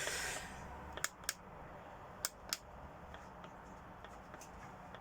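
Four sharp clicks in two close pairs about a second apart, then a few fainter ticks, over a faint steady low hum.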